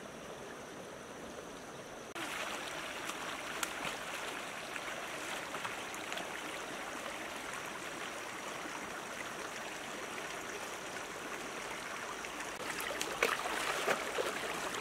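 Shallow stream running over rocks, a steady rush of water that gets louder about two seconds in. A few sharp splashes near the end.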